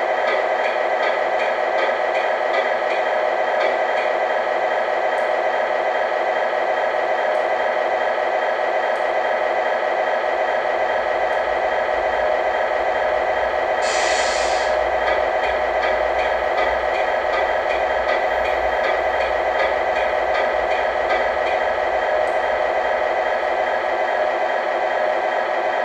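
Diesel truck engine sound idling steadily, as reproduced for a 1/14 scale RC tractor unit. A short burst of air hiss comes about halfway through.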